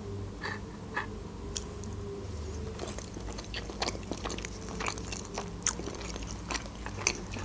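Close-miked chewing of a boiled pelmeni dumpling stewed in cream, with many small mouth clicks and smacks at an irregular pace.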